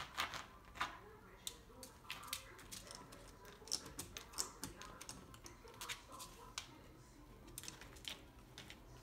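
Small dog's claws scratching and scrabbling at the bottom of a closed door, an irregular run of sharp scrapes and clicks.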